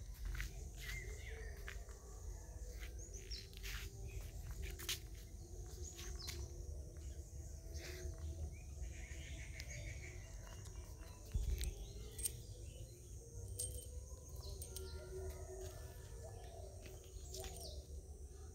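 Outdoor ambience: birds chirping over a low steady rumble, with scattered clicks and one louder thump about eleven seconds in.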